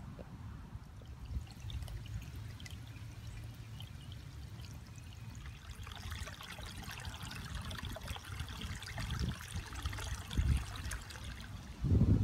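Shallow runoff water trickling and splashing over leaf litter and through a small channel in saturated woods, louder and busier from about halfway through. Under it runs a low wind rumble on the microphone, with a strong gust near the end.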